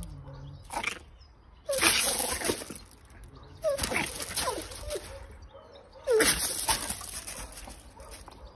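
Three bursts of scuffling on loose gravel, each with short, high, falling yelps from a small dog.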